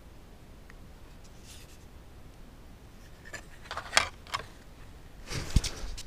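Handling noise of a small battery-powered camera being gripped and moved: fingers click and scrape against its plastic case, with a few sharp clicks about four seconds in. Near the end, as the camera is turned round, a cluster of scrapes ends in a dull thump.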